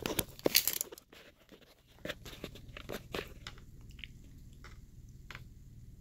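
Handling noise from a steel tape measure being fetched and pulled out: a cluster of clicks and rustles in the first second, then scattered light clicks and ticks after a brief pause.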